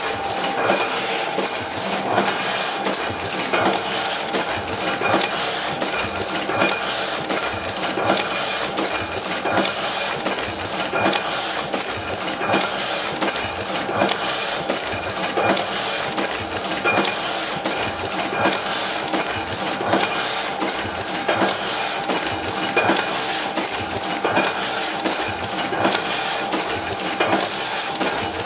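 Heidelberg Windmill platen letterpress running, its gripper arms and platen cycling in a steady rhythmic clatter of clicks and clanks over a constant machine hum.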